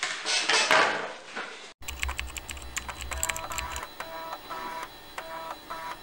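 A second or so of handling noise, then the outro music begins: an electronic track of quick clicky percussion and short repeating synth notes, with a bass under its first two seconds.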